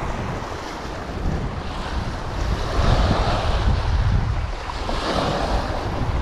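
Small waves breaking and washing up over a pebble-and-rock shore, surging twice, about three and five seconds in, with wind buffeting the microphone in a low rumble.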